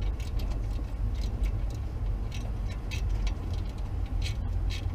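Small, irregular metallic clicks and ticks, two or three a second, from hand-fitting parts and bolts of a direct-drive fan kit onto the water pump pulley of a Ford 460 V8, over a steady low rumble.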